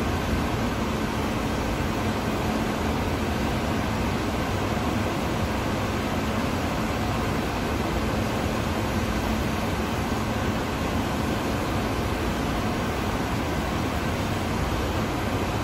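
Steady background noise of a steel workshop hall: an even, unbroken machinery noise with a low steady hum and no separate knocks or clanks.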